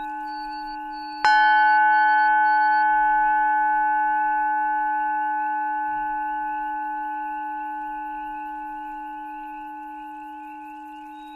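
Tibetan singing bowl struck once, about a second in, over the fading ring of an earlier strike. It then rings on with several steady overtones, slowly dying away.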